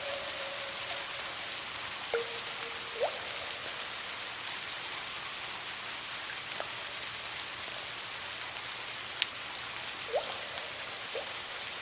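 Steady rain hiss with single water drops plinking every second or two. Several drops land with a short ringing, upward-sweeping plop, like drips falling into standing water.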